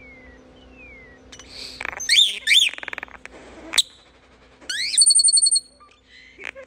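European starling singing: a varied run of falling whistles, quick rising-and-falling chirps and sharp clicks, with a rapid buzzy trill about five seconds in.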